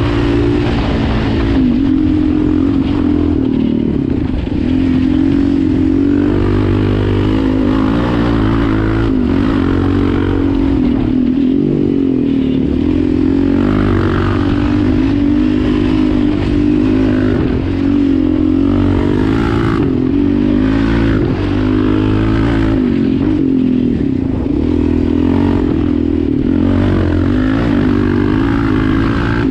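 Yamaha Raptor 700 quad's single-cylinder four-stroke engine running under way while being ridden, its pitch rising and falling again and again as the throttle is opened and closed.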